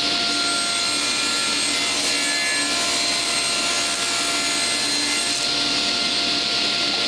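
Table saw blade, tilted to an 18-degree bevel, ripping along the edge of a wooden board: a steady loud cutting noise over the whine of the spinning blade. About five seconds in, the board clears the blade and the saw keeps running with no wood in the cut.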